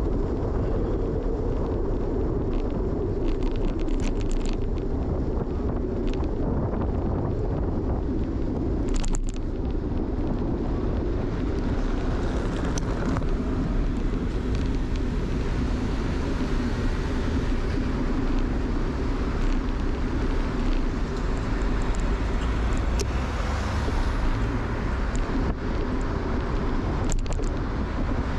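Steady rumble of riding a bicycle through city traffic: wind and road noise on the bike camera's microphone with cars around. A few brief clicks or rattles cut through it.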